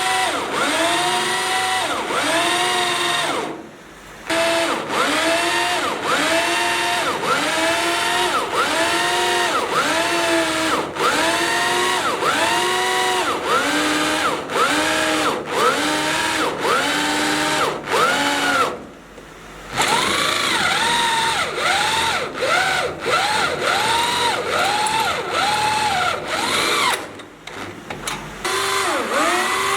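Electric power drill drilling into steel. Its motor whine rises and falls in quick repeated pulses, about one and a half a second, and stops briefly three times.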